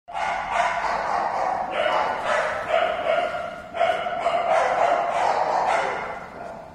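French bulldog whining in a long run of high, drawn-out cries while locked in a mating tie, fading away near the end.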